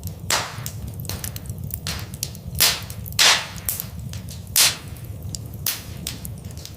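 Wood fire in a fireplace crackling, with frequent small snaps and a few loud pops, the biggest a little past the middle, over a steady low rumble of the flames.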